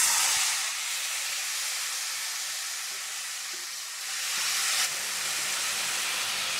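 Hot mustard oil sizzling in a kadhai as chopped brahmi leaves are dropped onto frying potato slices. The sizzle is loudest as the greens land, settles to a steady hiss, and swells again briefly about four seconds in.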